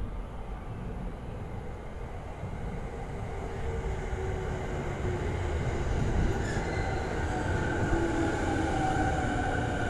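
JR East E217-series electric commuter train pulling into a station: wheels rumbling on the rails, growing louder as it nears. From about the middle on, the electric traction motors whine, falling in pitch as the train brakes.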